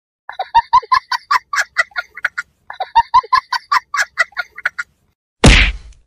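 Two runs of rapid, high-pitched cackling, about eight pulses a second, then a sudden loud hit that dies away within about half a second, like a horror jump-scare sound effect.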